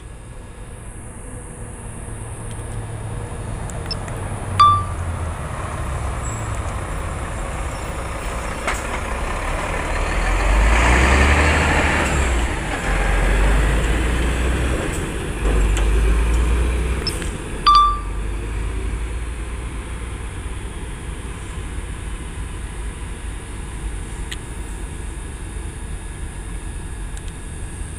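Road traffic: a large vehicle passes close by, its low engine rumble and tyre noise building to a peak in the middle and then fading away. Two short, high beeps sound, one a few seconds in and one after the vehicle has passed.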